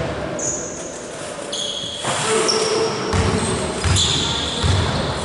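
Basketball bouncing on a sports-hall floor, about one thump a second from about two seconds in, with short high squeaks of sneakers on the court.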